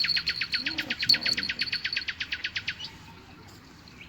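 A bird sings a fast trill of down-slurred notes, about ten a second, that stops a little before the end, over a steady high thin tone.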